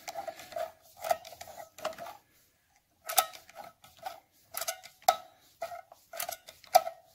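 Triumph clutch spring nuts being turned with a slotted flat-bar service tool: sharp metallic clicks, about two a second, each with a brief ring. There is a short pause a little past two seconds in.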